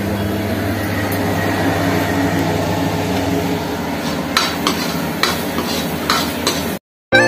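Masala paste frying in a steel kadai with a steady sizzle, stirred with a steel spoon. In the second half the spoon scrapes and knocks against the pan several times. The sound cuts off abruptly near the end.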